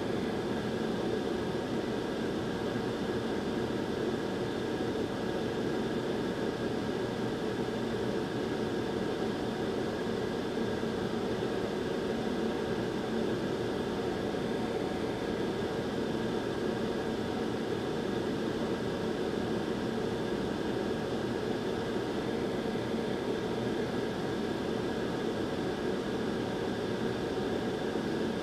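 Steady blowing hiss of a hot air rework station heating a freshly placed solder ball on a GPU memory pad so that it reflows. The airflow holds constant, with a faint steady whine above the rushing air.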